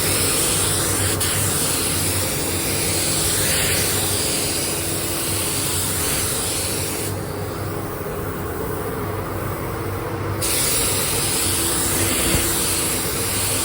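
Paint spray gun hissing as a candy coat is sprayed over the base colour. The spray stops for about three seconds partway through, then starts again for the next pass. A steady low hum runs underneath.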